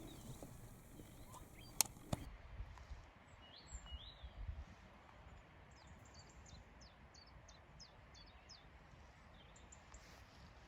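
Faint chiffchaff song: a run of short, high, downward-slurred notes repeated about three a second. Two sharp clicks come about two seconds in.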